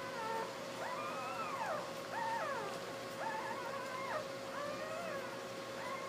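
Newborn basset hound puppies squeaking and whining while they nurse: many thin cries that rise and fall in pitch and overlap one another. A steady faint hum runs underneath.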